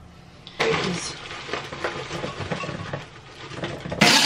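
Clattering and rustling of kitchen items being handled on a counter, then about four seconds in a countertop blender switches on suddenly and runs loudly, blending frozen fruit, greens and ginger into a smoothie.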